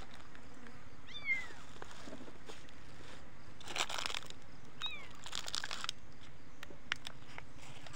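A kitten mewing: two short, high cries falling in pitch, about a second in and again about five seconds in. In between come louder bursts of rustling and crunching.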